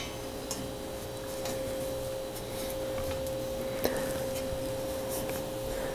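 A few faint, light clicks as small metal parts of a down-tube friction shift lever are handled against the bicycle frame, with one sharper click about four seconds in, over a steady faint hum.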